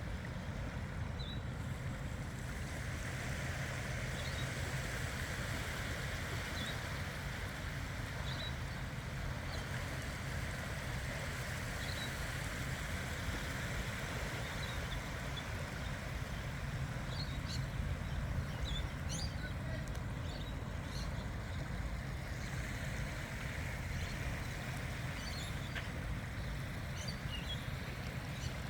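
Steady outdoor ambient noise with a low rumble. Faint high-pitched bird chirps come every couple of seconds, in quicker clusters a little past the middle and near the end.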